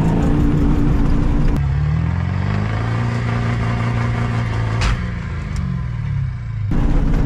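Ford pickup's 7.3 V8 diesel revving hard, heard first from inside the cab and then from a distance: the engine pitch climbs, holds high, then drops away. A sharp crack sounds about five seconds in, with a second, lighter one shortly after.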